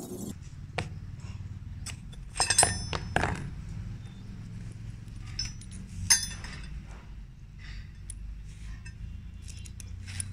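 Small steel parts, a ball bearing, bolt and slotted steel plates, clinking and tapping together as they are handled: a cluster of sharp clinks with a short metallic ring about two and a half to three seconds in, and another loud one about six seconds in, over a low steady hum.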